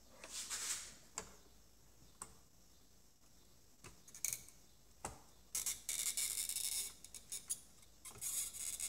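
Soldering iron tip working at a capacitor's solder joint on a circuit board to free its lead: a few sharp small clicks and short bursts of high scratchy hiss, the longest lasting over a second about halfway through.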